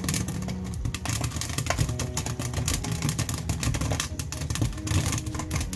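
Popcorn popping in a covered frying pan: dense, irregular pops and clicks over a steady low rumble. The pan is packed so full that the popped corn is pushing up the glass lid.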